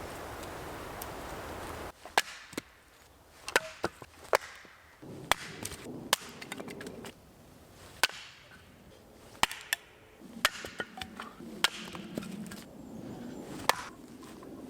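Wood being worked by hand: about a dozen sharp, irregularly spaced wooden knocks and chops as logs and branch pieces are handled and struck. A steady hiss fills the first two seconds and cuts off suddenly.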